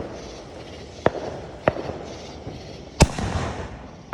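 Fireworks going off: four sharp bangs, roughly one a second, the third and loudest about three seconds in, with a rumbling tail that fades over the next second.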